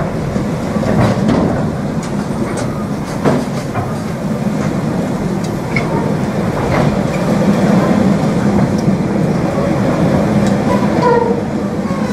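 Freight train of bogie aggregate hopper wagons rolling past close by: a steady heavy rumble with irregular wheel clicks over the rail joints and a few short squeaks near the end.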